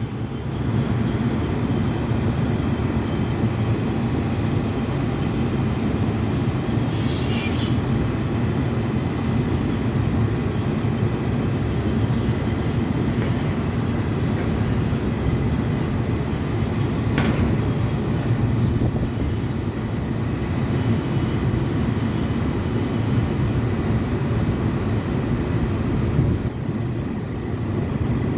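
Steady, loud low rumble of running machinery with a faint high whine over it, and a short hiss about seven seconds in.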